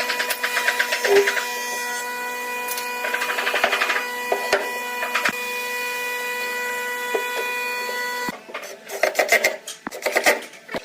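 Electric woodworking power tool's motor running with a steady whine, with rasping stretches where it cuts into wood. It stops abruptly about eight seconds in, and then come a few irregular scraping strokes.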